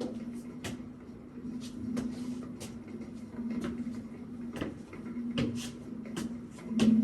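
A steady low hum-like tone that swells and fades every second or two, with scattered sharp clicks and knocks over it.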